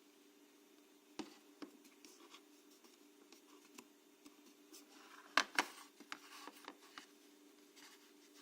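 Keys of a Viboton keyboard being pressed and handled: scattered light clicks and taps, with two sharper clicks in quick succession about five and a half seconds in, over a faint steady hum.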